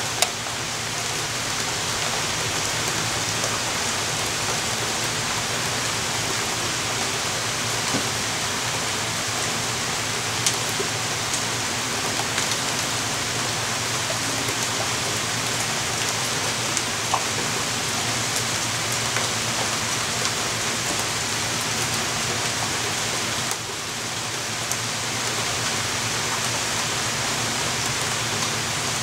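Steady rain from a thunderstorm, with single drop taps standing out here and there. The rain eases slightly for a moment about two thirds of the way through.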